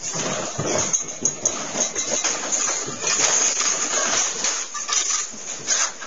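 A house shaking in an earthquake: a dense, continuous rattling and clattering of the building and the things in it, with many sharp clinks and knocks. It sets in abruptly and stays loud throughout.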